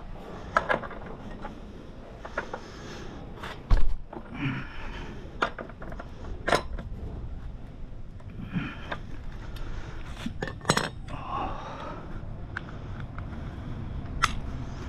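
Metal hand tools and parts clinking and knocking in scattered, irregular clicks, with one heavier thump about four seconds in.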